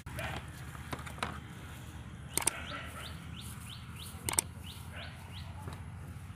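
A bird calling a quick series of short, high chirps, about three a second, over a steady low outdoor rumble, with two sharp clicks partway through.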